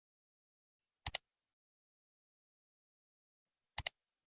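Two short, sharp double clicks, one about a second in and one near the end, in otherwise dead silence.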